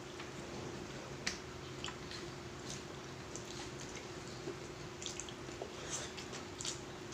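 Faint wet clicks and smacks of people chewing and eating, scattered through the stretch, over a steady low hum.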